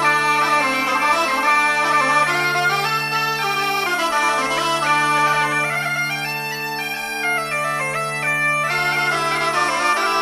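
Bagpipe music: a reedy melody played over steady, unbroken drones, the tune dropping lower and softer for a couple of seconds past the middle.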